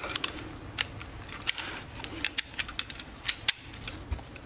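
Hand ratchet wrench clicking in short irregular runs as it works a socket on a stubborn suspension bolt, with sharp metal ticks two to four times a second.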